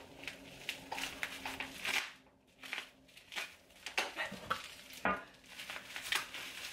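Plastic bubble wrap crinkling and rustling as it is worked loose from a glass candle jar by hand, with many short irregular crackles and small clicks.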